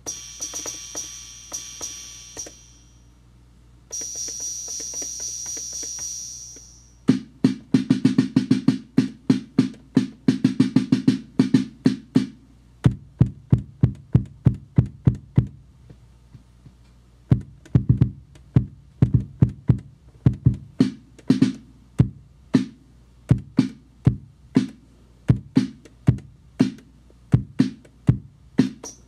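Boss DR-110 Dr. Rhythm Graphic analog drum machine playing through a Trace Elliot Boxer 30 bass amplifier. It opens with two long bright hisses, then a fast run of drum hits, then a steady beat of low bass-drum thumps mixed with sharper hits. It works, on its first test through an amp.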